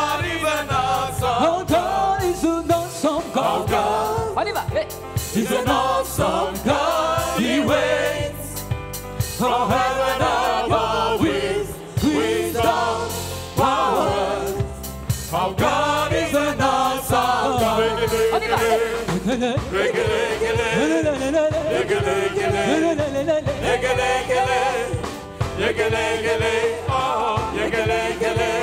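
Live gospel worship music: a woman leads the singing and a group of voices joins her, over a live band with a stepping bass line and percussion.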